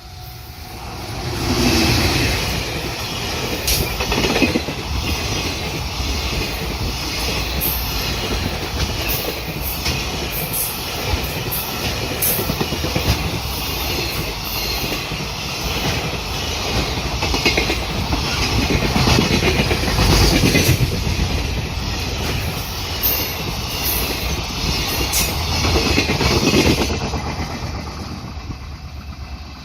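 A train passing close by at speed, its wheels rumbling and clattering over the rail joints for about 25 seconds. The sound builds quickly about a second in and dies away near the end.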